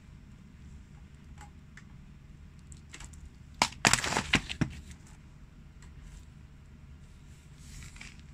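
Green-skinned pumpkin cracking and breaking under a shoe's heel: a quick cluster of sharp cracks a little before halfway, with a few faint clicks before and after.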